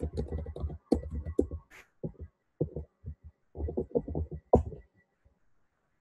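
Computer keyboard typing: quick runs of thumpy keystrokes with a short break about two seconds in, ending in a harder key press (Enter) just before five seconds.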